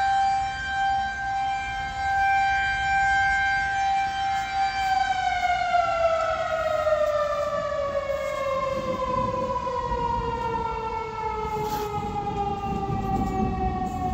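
Federal Signal 2001-130 electromechanical outdoor warning siren sounding a tornado warning: it holds a steady tone, then from about five seconds in winds down, its pitch falling slowly and evenly.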